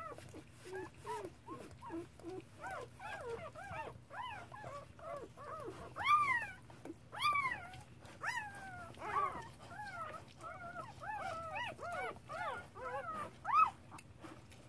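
Newborn standard poodle puppy, just delivered, crying: a rapid run of short, high squeaking cries, each rising and then falling in pitch. The loudest come about six seconds in, again just after seven, and near the end.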